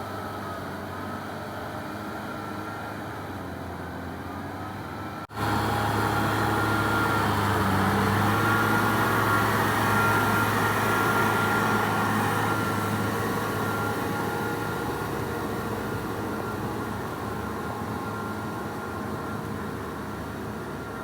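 Kubota M6040SU tractor's diesel engine running steadily while ploughing. About five seconds in the sound breaks off for an instant and comes back louder.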